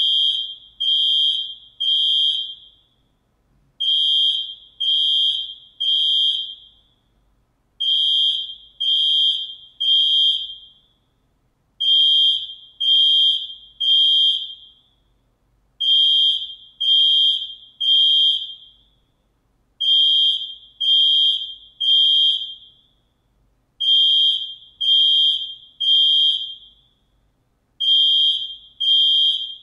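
Alarm sounding in sets of three high, steady electronic beeps, each just under a second long, with a set every four seconds; sold as a ship or submarine siren sound effect.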